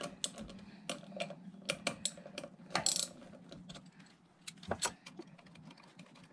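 Hand ratchet wrench clicking in short, irregular runs while backing out the cover-plate screws of a Yanmar 3GM30 raw-water pump, with a brief scrape of metal about three seconds in and two sharp knocks a little before five seconds.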